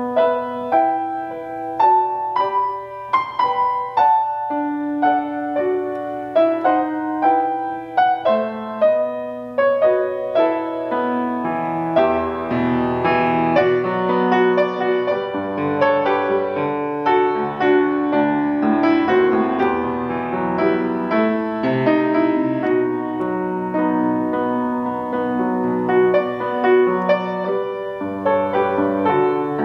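Grand piano played solo, a melody over chords with clear separate notes; partway through the playing grows fuller, with low bass notes added.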